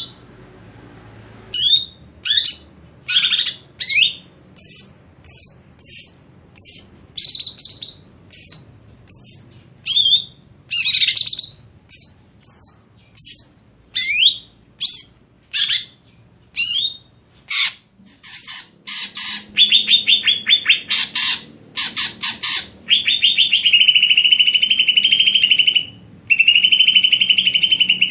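Cucak ijo (greater green leafbird) singing. It gives a long series of loud, sharp whistled notes, each sliding in pitch, about one and a half a second. In the second half it switches to rapid chattering trills and then a long buzzing trill.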